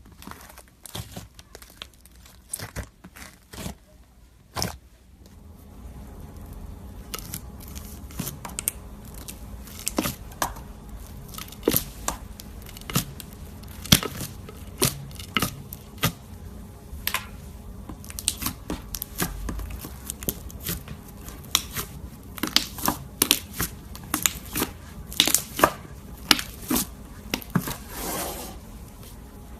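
Slime being squeezed and worked by hand, giving a run of irregular crackling and popping clicks, over a faint steady hum from about six seconds in.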